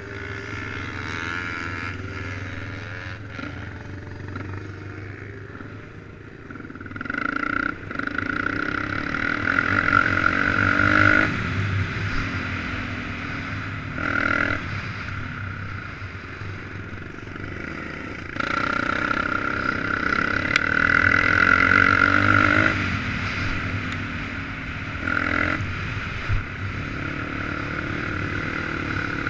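Small off-road engine on the rider's own machine at speed, the throttle opening and closing again and again, with hard, loud stretches about a third of the way in and again past the middle.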